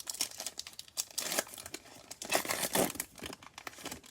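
Prizm basketball card pack wrapper being torn open and crinkled by hand, a dense run of crackling rustles with louder tearing bursts.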